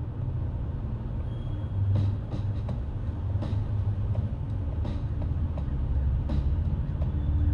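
A steady low rumble with light, sharp clicks scattered through it, roughly one every half second to a second.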